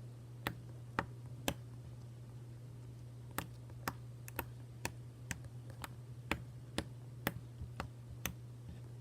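Slime being pressed and poked, making sharp clicking pops about twice a second over a steady low hum.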